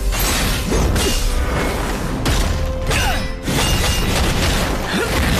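Fight-scene sound effects for animated magic combat: a run of hard impacts, shattering crashes and whooshes over a low rumble, with music underneath.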